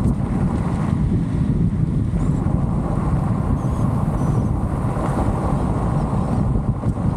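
Steady wind noise and low road rumble from a car driving, heaviest in the deep low end.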